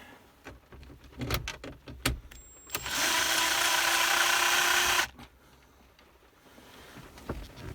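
Cordless electric screwdriver backing out a T20 Torx screw, its motor running steadily for about two seconds about three seconds in, with light clicks and handling of the tool and trim before it.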